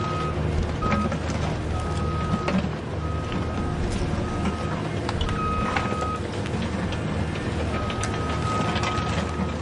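Huina remote-control excavator working in sand. A high steady whine switches on and off irregularly as the functions are driven, over a low continuous hum, with light clicks and scrapes.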